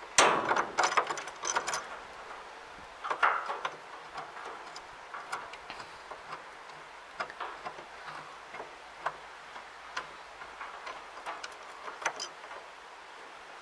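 Irregular metallic clicks and short scrapes of a roller bearing and its two-half flange housing being handled and turned by hand on the baler roller's shaft. The sounds are busiest in the first two seconds and again about three seconds in, then thin out to scattered ticks.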